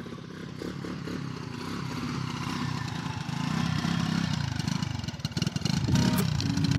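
Motorcycle engine running, getting gradually louder, like a bike pulling away and gathering speed.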